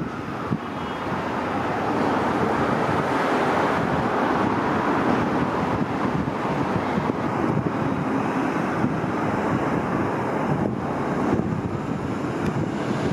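Steady rumble of a subway train pulling away on the elevated steel structure, mixed with wind noise on the microphone.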